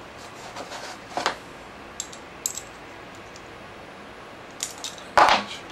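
Small brass nuts and a brass rod clinking as the nuts are worked loose by hand: a scattering of light metallic clicks, with a louder clack near the end.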